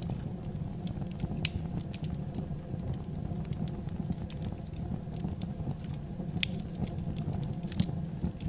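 Wood fire burning in a fireplace: a steady low rumble of the flames with scattered sharp crackles and pops, the loudest about one and a half seconds in and near the end.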